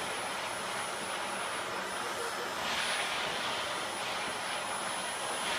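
Stick vacuum cleaner running steadily over carpet: a continuous rush of motor and air noise with a thin high whine.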